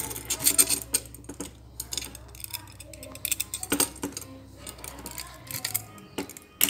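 Small metal parts clicking and clinking as a round chainsaw file is fitted into a clamp-on file guide by hand. The knocks are irregular and come in short clusters.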